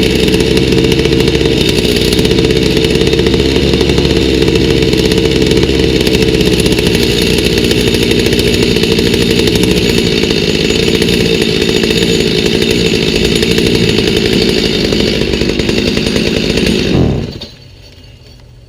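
Stihl MS290 two-stroke chainsaw engine running steadily on a new aftermarket carburetor whose mixture screws are still at their out-of-box settings. Near the end it shuts off, its pitch dropping quickly as it winds down.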